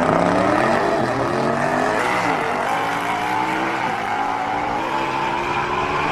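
Car engine accelerating hard, its pitch climbing, dropping about two seconds in as it shifts up, then climbing again more slowly.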